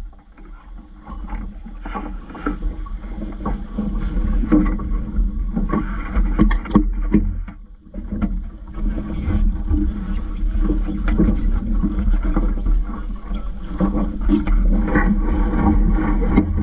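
Vaucluse Junior sailing dinghy under way: steady wind rumble on the boat-mounted camera with water against the hull, and frequent short knocks and rattles from the rigging, fittings and crew moving in the cockpit.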